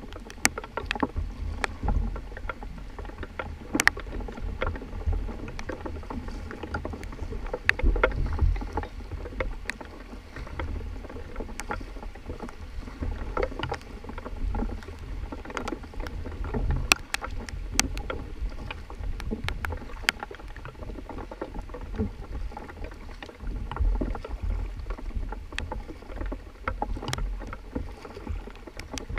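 Kayak paddles dipping and splashing in river water, with water washing along the hull of an inflatable kayak over a low rumble. Sharp splashes and clicks come at irregular moments all through.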